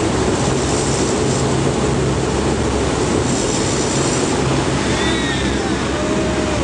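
Lockheed C-130 Hercules turboprop engines running steadily, heard as a loud, even roar with a low hum inside the aircraft. Faint gliding tones rise and fall over the noise near the end.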